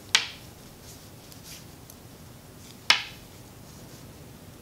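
Wooden knitting needles clicking together as stitches are worked: two sharp clicks, one just after the start and one nearly three seconds later.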